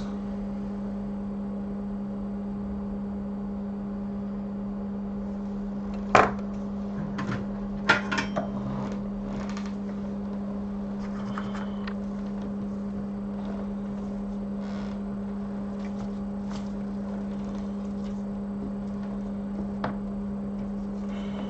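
Steady low electrical hum from soldering bench equipment, with a few sharp clicks of small tools being handled about six and eight seconds in.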